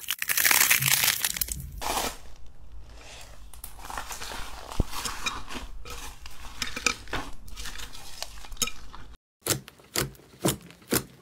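Hands working slime and clay: first a dense crackling as a crunchy clay orange is squeezed until its skin cracks, then softer squishing and crackling as grey slime with small beads is kneaded in a glass bowl. Near the end, after a brief break, about five sharp pops as clear pink slime is pressed down with the fingertips.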